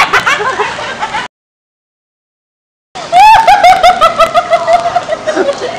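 Loud laughter that breaks off into dead silence for about a second and a half, then starts again loudly.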